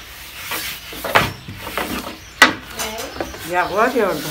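Kitchen tools knocking on a work surface during dough preparation: a light knock about a second in and a sharp, loud knock halfway through. Near the end comes a short call that rises and falls in pitch.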